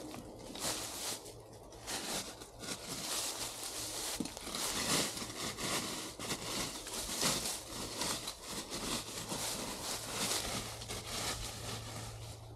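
Irregular rustling and crackling of dry brush or ground cover being disturbed, in uneven strokes, over a faint steady low hum.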